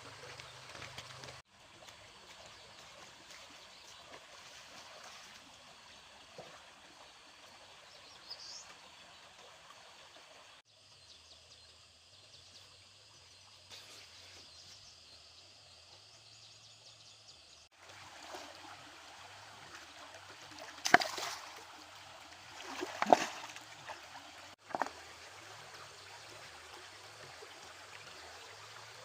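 Stream water flowing and trickling steadily, with a few sudden loud impacts about two-thirds of the way through.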